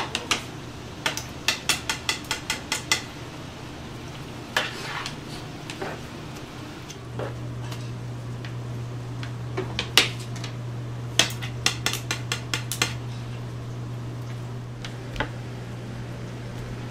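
Metal spatula tapping and scraping on a plastic cutting board while fish-cake paste is spread and shaped. It gives two runs of quick clicks, about four a second, over a steady low hum that gets louder about halfway through.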